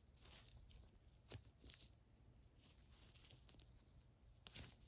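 Near silence with faint rustling of nitrile gloves handling a small steel ratchet pawl, and two soft clicks, about a second in and near the end.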